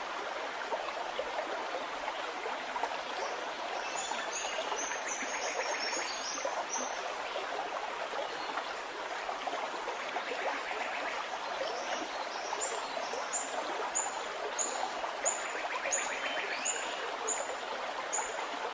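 Steady rushing water of a waterfall. Over it, a bird repeats short, high, falling chirps, a few seconds in and again from about two-thirds of the way through.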